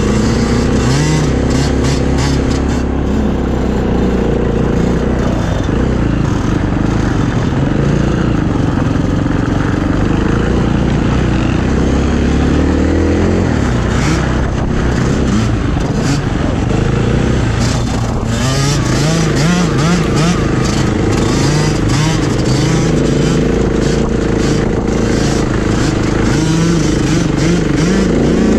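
KTM EXC enduro motorcycle engine under hard riding, revving up and falling back again and again, with scattered sharp clicks and ticks over it.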